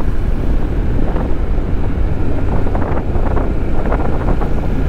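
Wind buffeting the microphone on a moving Honda NC750X motorcycle at road speed, with the bike's parallel-twin engine and tyre noise running steadily underneath.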